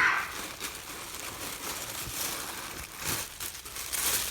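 Packaging rustling and crinkling as it is handled, with a few light knocks.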